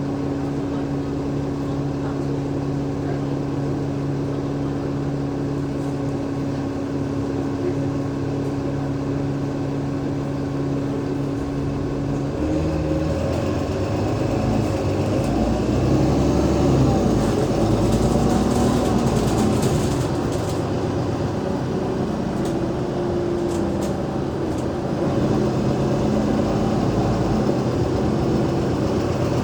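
Cummins ISL8.9 diesel engine of an Alexander Dennis Enviro500 MMC bus idling steadily, then about 12 seconds in the bus pulls away and the engine runs louder under load, its pitch rising and stepping as the ZF Ecolife automatic gearbox changes gear.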